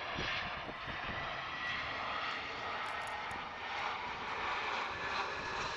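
Airbus A320 jet airliner on landing approach, its engines making a steady rushing noise with a faint high whine.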